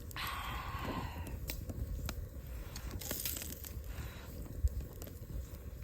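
Soft eating and handling noises: a rustle near the start, scattered light clicks and crunches, and a brief hiss about three seconds in.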